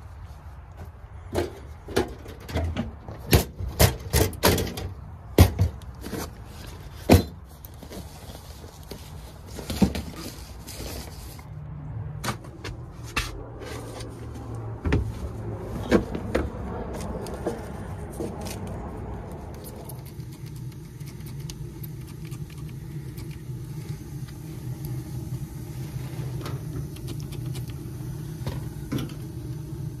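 Gear being moved around in a work van: a run of sharp knocks and clatter over the first dozen seconds. From about two-thirds of the way in there is a steady low hum.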